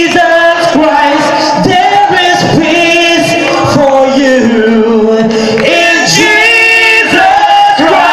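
Live Christian worship music at a gospel event, led by a man singing long, held sung lines.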